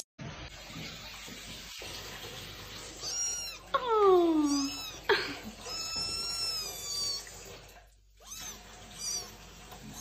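Wet kitten meowing in protest while being bathed: a short cry, then a cry that falls steeply in pitch, then one long drawn-out meow, with a few short mews near the end.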